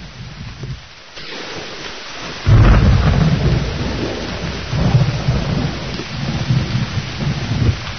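Thunderstorm: steady rain hiss, with thunder breaking in suddenly about two and a half seconds in and rumbling on in swells.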